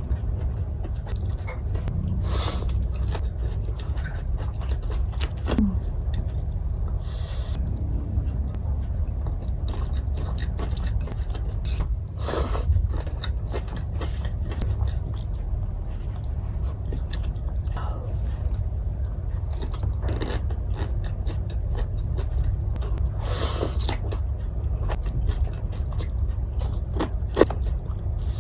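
Close-miked chewing and mouth sounds of someone eating patin catfish and greens, with small irregular clicks and a few louder smacks, over a steady low hum.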